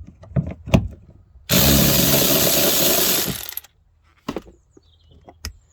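A few plastic clicks and knocks of trim being handled, then a cordless power tool runs steadily for about two seconds, removing the fastener of the boot-floor access cover.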